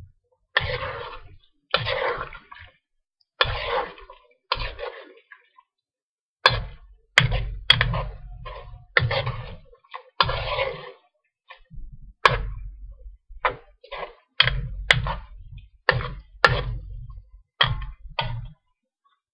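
A metal serving spoon stirring chicken pieces in sauce in a metal wok: about twenty separate strokes of wet scraping and sloshing. From about six seconds in, most strokes begin with a sharp clink of the spoon against the side of the wok.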